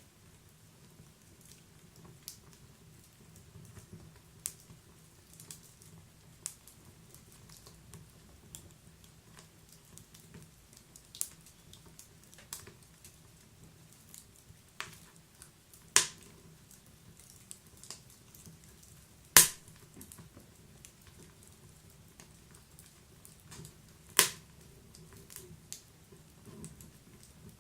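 Wood fire burning in a wood-burning stove: sharp, irregular crackles and pops over a soft low hiss, with a few loud snaps, the loudest about two-thirds of the way through.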